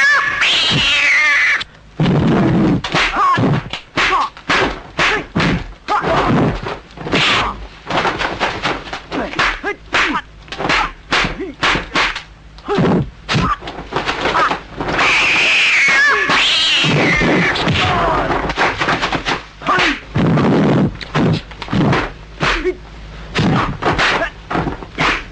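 Kung fu film fight soundtrack: rapid volleys of dubbed punch and block impact effects, with short shouts between them. Long, high, cat-like screeching cries at the start and again about two-thirds of the way through, the yowls that go with the cat's claw fighting style.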